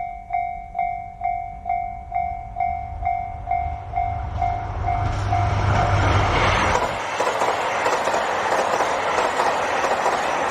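Japanese level-crossing warning bell ringing about twice a second as a KiHa 261 series diesel limited express approaches, its engine rumble building. About six seconds in, the train passes the crossing and its noise drowns the bell, with the wheels clattering rhythmically over the rail joints.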